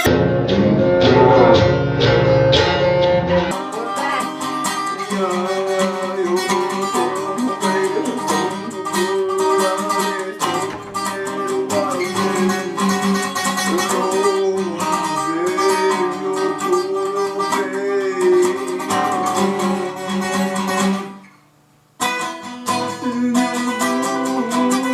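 Acoustic guitar being played, plucked and strummed. The first few seconds are heavier in the bass, and the playing drops out for about a second near the end before resuming.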